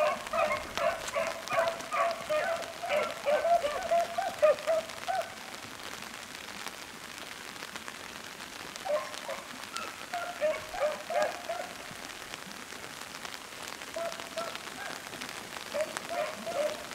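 Beagles baying on a rabbit's trail: a string of short, repeated hound notes that drops away about five seconds in, returns for a couple of seconds midway and picks up again near the end. Rain patters steadily underneath.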